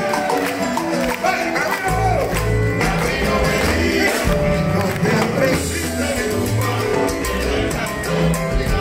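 Live salsa band playing loud through a concert PA, with keyboard, drums and percussion. The bass drops out at the start and comes back in about two seconds in, with singing over the band.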